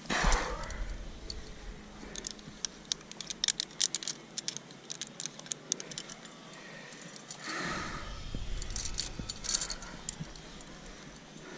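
Metal climbing gear, carabiners and quickdraws racked on a climber's harness, clinking and jangling in quick irregular clicks as he moves. There are stretches of low rustling at the start and again from about eight seconds in.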